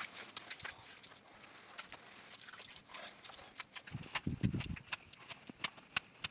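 Irregular sharp taps and knocks, with a duller low thump about four seconds in.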